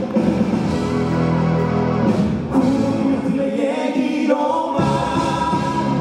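Live pop-rock band playing with a sung vocal line over electric bass, guitars and drums.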